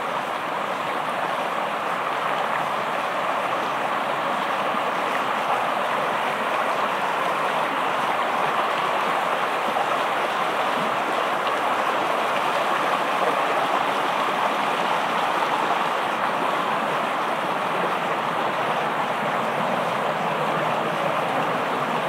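Shallow rocky stream rushing steadily over stones.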